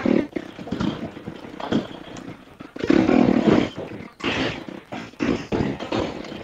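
Husqvarna FE 350 dual-sport motorcycle's single-cylinder four-stroke engine revving up and down under uneven throttle while riding off-road, revving hardest about three seconds in.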